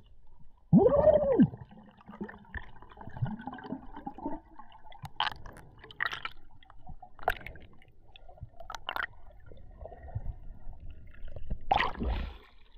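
Muffled underwater sound from a freediver's camera: faint gurgling and scattered clicks, with a brief loud tone that rises and falls about a second in. Near the end comes a loud rush of water and air as the diver breaks the surface.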